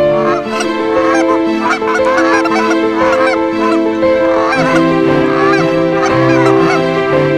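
A flock of Canada geese honking and calling constantly, many birds overlapping, over background music with held low notes.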